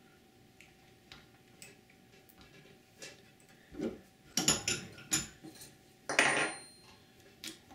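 Metal clinks and clanks from a bench vise being tightened around a steel nail set: a few quick clinks about halfway through, then a louder clank with a brief ring about six seconds in as the vise's sliding steel handle drops.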